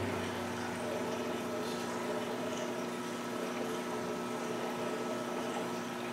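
A saltwater aquarium's pump running with a steady hum over the hiss of circulating water.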